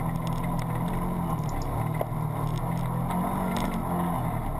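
Can-Am Commander 1000 side-by-side's V-twin engine running steadily as it drives a rough, muddy trail, heard from inside the cab, with scattered light clicks and rattles.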